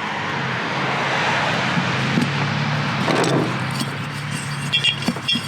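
A rushing vehicle-like noise over a steady low hum swells and fades over about four seconds. Near the end come several light clicks and clinks as the inner tube's valve stem is worked back through the mower rim.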